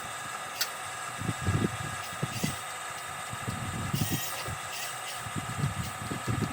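Small electric motors of an RC construction model running with a steady high whine, with irregular low rumbling and a few sharp clicks.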